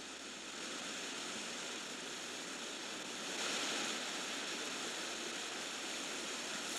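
River water rushing over rocks in a steady roar of white noise that swells briefly about halfway through.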